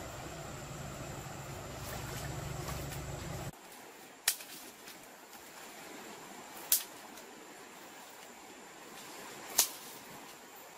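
Steady rush of river water flowing around the legs, cut off abruptly about three seconds in. Then three sharp snaps of dry sticks broken by hand, a couple of seconds apart.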